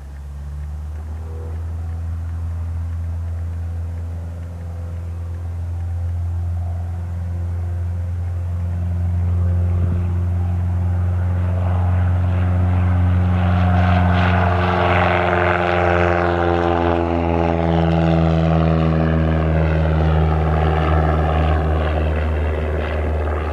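Cessna 172 Skyhawk's four-cylinder piston engine and propeller at full takeoff power, getting louder as it approaches and then dropping in pitch as it passes by.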